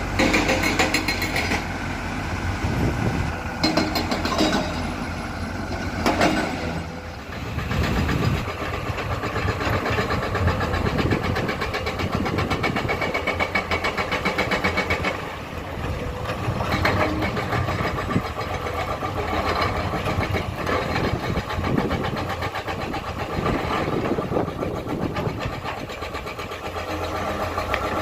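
Komatsu hydraulic excavator's diesel engine running steadily while it digs and loads rock, the engine note rising and falling with the load. A few knocks come in the first several seconds.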